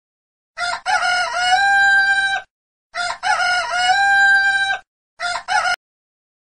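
Rooster crowing cock-a-doodle-doo twice, each crow ending in a long held note, then a third crow cut off abruptly after about half a second.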